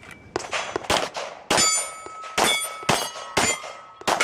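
A string of about eight pistol shots fired at steel targets, roughly one every half second, with the steel plates ringing after the hits.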